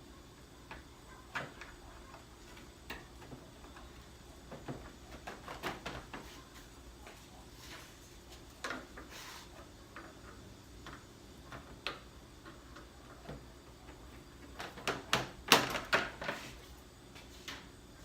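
Irregular clicks and knocks of hand tools and intake parts being worked in an engine bay, with a quick run of louder clicks about three-quarters of the way through.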